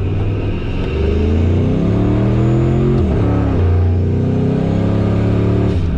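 Turbocharged Ford 5.4-litre V8 at full throttle in a 0-60 launch, heard from inside the cab, with a lot of rear tire spin in two-wheel drive. The revs climb, drop as the automatic transmission upshifts about three seconds in, climb again, and fall away near the end.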